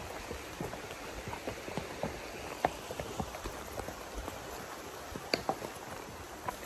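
Horse hooves on a dirt trail: irregular knocks and crunches over a steady hiss, with one sharper knock about five seconds in.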